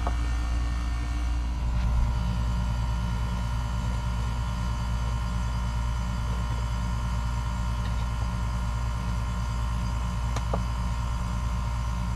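Steady low mechanical hum with a faint steady high whine above it, and a light click about ten seconds in.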